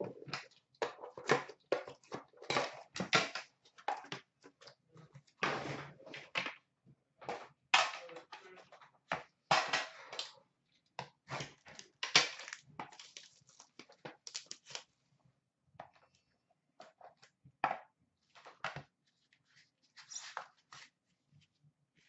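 Hockey card box packaging handled and opened by hand: irregular bursts of crinkling and rustling for about fifteen seconds, then a few sparse light clicks and taps as the metal tin's lid comes off.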